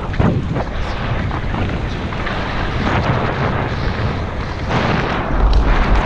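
Wind buffeting the microphone of a camera on a mountain bike descending fast, mixed with the tyres rolling over a dirt and gravel track. Irregular knocks and rattles come from the bike over bumps.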